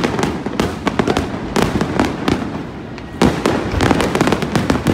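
Aerial fireworks shells bursting in rapid succession: a dense run of sharp bangs and crackles, with a fresh volley of louder bangs about three seconds in.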